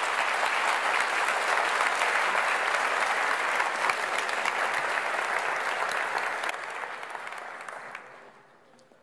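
Audience applauding, steady for about six and a half seconds, then dying away near the end.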